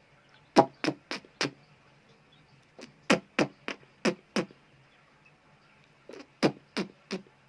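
Chickens giving short, sharp clucks in quick runs of four to six, with pauses between the runs.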